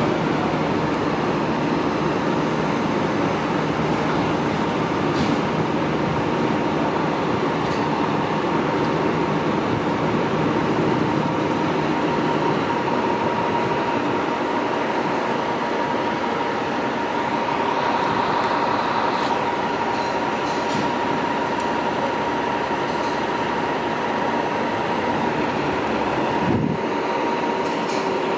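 Fire engine's diesel engine running steadily in the firehouse bay: an even, unbroken drone with a constant high whine over it.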